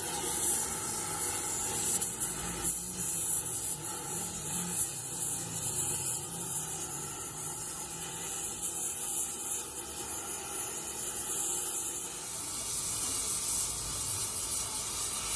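Gas flame spray welding torch hissing steadily as its flame plays on a cracked cast iron tractor transmission housing.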